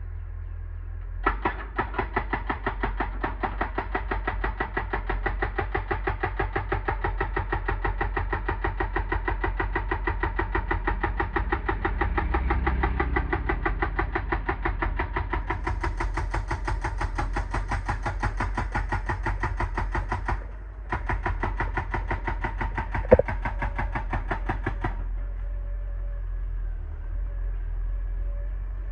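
Excavator-mounted hydraulic rock breaker hammering rock in a rapid, even stream of blows over the running diesel engine, pausing briefly once and stopping a few seconds before the end, after which the engine runs on alone.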